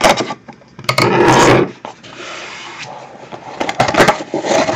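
A knife cutting and scraping through the shrink wrap on a cardboard trading-card box, with a louder rasping stroke about a second in. Near the end the loose plastic wrap crackles as it is pulled off.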